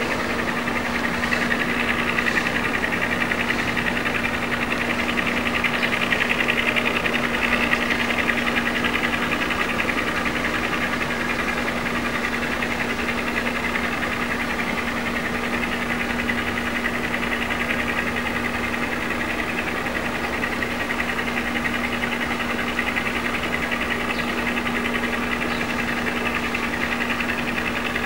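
A steady mechanical hum and whir with a constant low tone, unchanging throughout.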